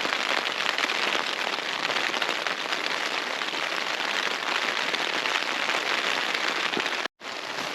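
Heavy rain pelting steadily on the Hilleberg Unna tent's flysheet, heard from inside the tent, as a dense unbroken patter of drops. The sound cuts out for a split second about seven seconds in.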